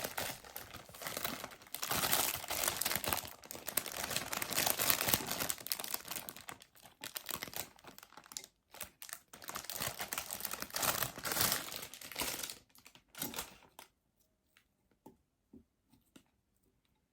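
Crinkling and rustling as salad is handled and placed into a bowl, in uneven spells that stop about 13 seconds in.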